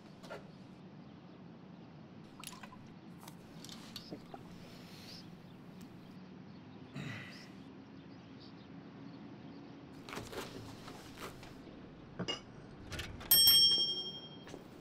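A small bell is struck once near the end and rings on for about a second. Before it there is quiet café room tone with scattered small clicks and rustles.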